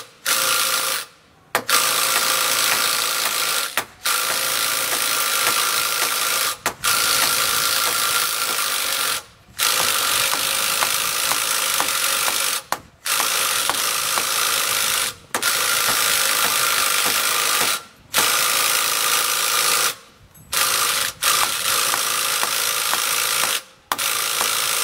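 Cordless impact wrench hammering in repeated runs of two to three seconds with short pauses between them, turning a long threaded rod to force a Kohler 14RESA generator's tight-fitting alternator rotor off the engine shaft.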